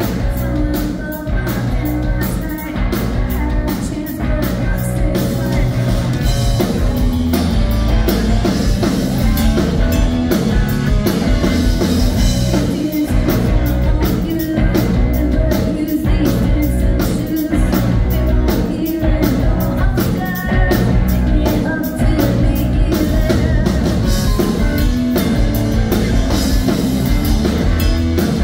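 Live rock band playing a song: distorted electric guitar and a drum kit keeping a steady beat, with a woman singing lead.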